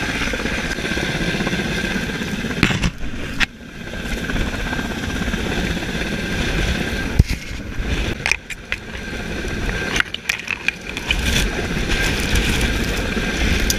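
Rustling of jacket fabric and gear rubbing against a body-worn camera as the wearer moves about in deep snow, with several sharp knocks of handling.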